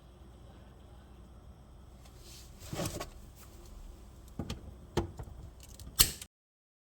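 A few short knocks and clatters over a low, steady hum, the loudest about six seconds in, then the sound cuts off abruptly.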